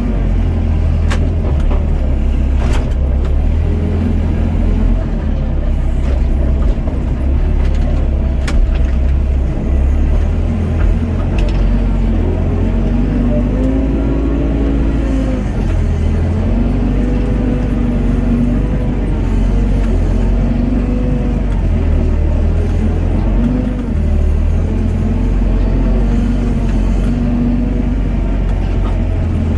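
Doosan DX55 mini excavator's diesel engine and hydraulics running steadily, with a pitched tone that sags and recovers over and over as the bucket works. A few sharp clicks or knocks come in the first several seconds.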